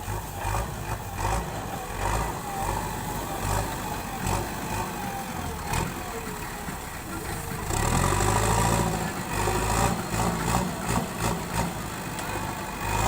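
Diesel engine of a JCB backhoe loader running steadily, growing louder for a while about eight seconds in, with scattered clanks.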